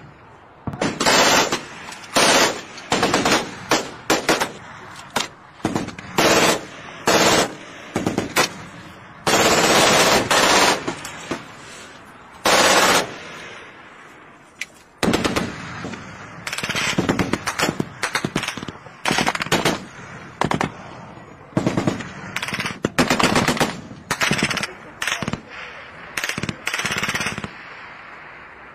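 Machine-gun fire in repeated bursts, some short and some lasting over a second, with pauses between them; the longest burst comes about ten seconds in.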